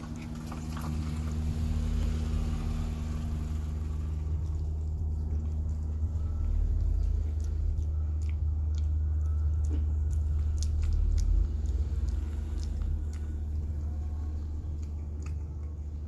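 A cat eating wet cat food, with wet chewing and short, sharp lip-smacking clicks, over a steady low hum.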